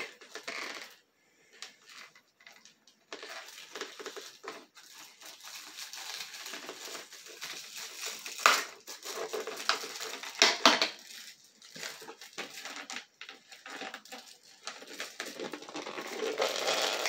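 Cardboard toy box being handled and pried open by hand: irregular rustling, scraping and crinkling of the packaging, with a couple of louder sharp rips about halfway through.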